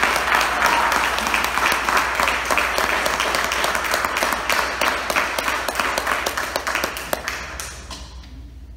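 Audience applauding, many hands clapping densely, fading away near the end.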